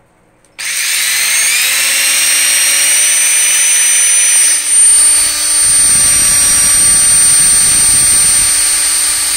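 Cordless drill spinning a 3D-printed mandrel inside a Vaseline-coated plastic SMARS robot wheel, breaking the wheel in by wearing its rough inner surface smooth. The motor whine starts about half a second in and rises slightly in pitch as it spins up, then runs steadily. From about halfway a low rumble joins it.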